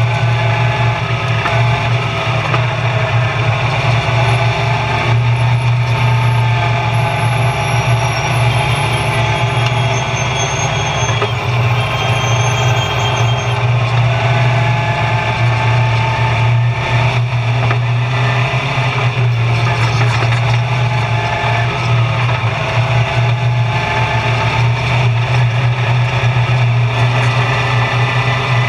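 Stock car's engine heard from inside the cockpit, running loud and steady under way around an oval, with a constant low drone and small rises and falls in pitch.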